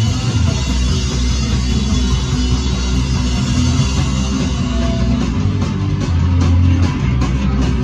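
Live rock band playing loudly: electric guitar and drum kit, with a heavy low end and cymbals crashing through.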